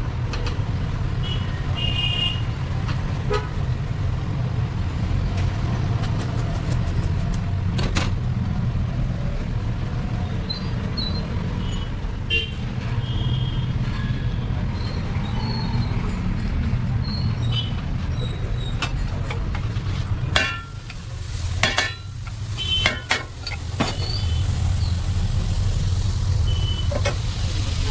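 Steady street traffic rumble with occasional short horn toots and scattered clicks.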